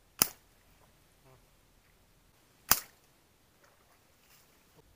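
Homemade wooden crossbow shooting: two sharp snaps about two and a half seconds apart.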